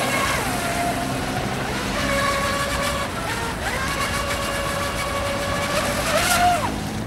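Brushless electric motor (Leopard 3660 2550KV on 5S) of a radio-controlled Genesis catamaran speedboat running at speed: a steady whine that drops in pitch as the throttle eases early on, climbs again around halfway, and falls away near the end.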